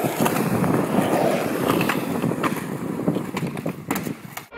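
Skateboard wheels rolling over concrete with a steady rumble, broken by a few sharp clacks of the board.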